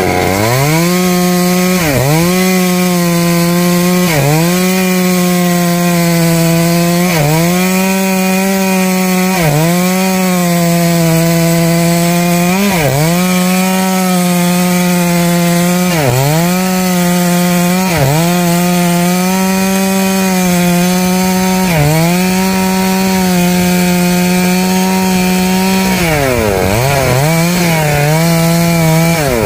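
Stihl two-stroke chainsaw running at high revs while cutting through a rain tree (Trembesi) trunk. Its pitch drops briefly and recovers every two to three seconds as the chain bites into the wood, with two deeper dips near the end.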